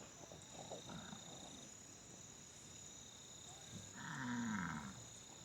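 Distant Nelore bulls bellowing: one long call about four seconds in, falling slightly in pitch.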